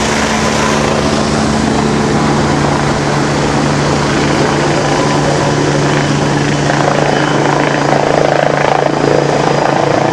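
Helicopter hovering low overhead: loud, steady rotor and engine noise with a constant low hum.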